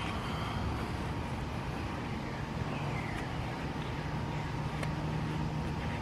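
Steady low background rumble, with a low steady hum joining about halfway through.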